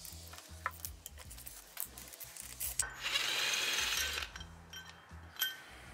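A few light metal clicks of a socket and hand ratchet on a bolt. About three seconds in, a Ryobi cordless driver spins for about a second and a half, backing out a bolt that holds the half-shaft support bracket to the gearbox. Faint background music runs underneath.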